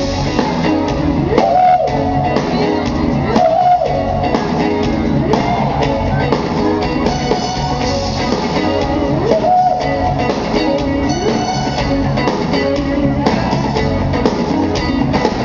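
Soul band playing live on stage: electric guitar and drum kit keep a steady groove, with a line that slides up into a held note, recurring every few seconds.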